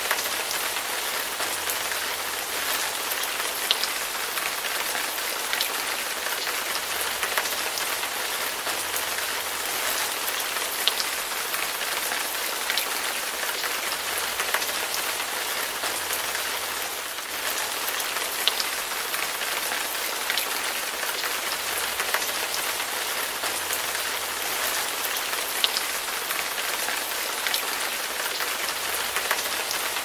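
Steady rain falling: an even hiss with scattered sharper drop ticks.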